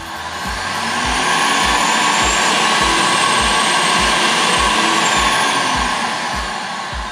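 Blower of an Isocell ISOBLOW SMART insulation blowing machine spinning up as its speed dial is turned, running with a steady rushing sound and a faint high whine, then winding down near the end. A music track with a kick-drum beat about twice a second runs underneath.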